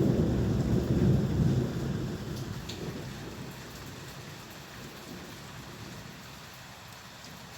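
Thunder rumbling over steady rain: the low rumble is loudest about a second in and dies away over the next two seconds, leaving only the hiss of falling rain.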